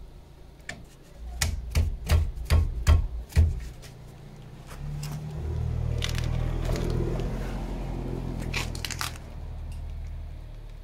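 About six sharp metallic knocks roughly a third of a second apart, from tool work on a stuck brake caliper bolt, then a low steady rumble through most of the rest.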